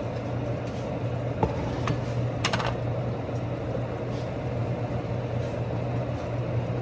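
Steady low hum of a kitchen appliance running, with a few sharp clicks of utensils against cookware about one and a half, two and two and a half seconds in.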